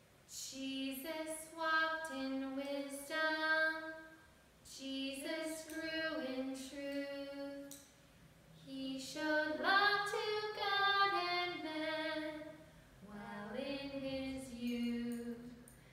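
A woman and a child singing a children's Primary song together, unaccompanied, in four sung phrases with short breaks between.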